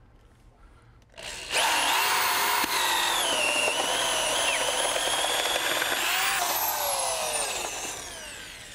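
Cordless drill with a 3/4-inch auger bit boring through a wood-shingled house wall. The motor whine starts about a second in, runs steadily under load for about five seconds, then falls in pitch and fades as the drill spins down near the end.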